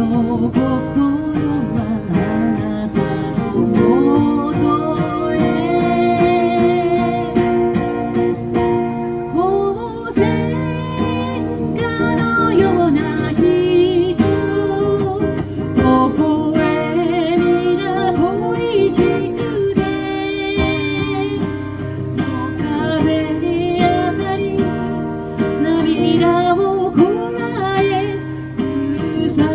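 A song played on strummed acoustic guitar, with a wavering melody line carried over the chords.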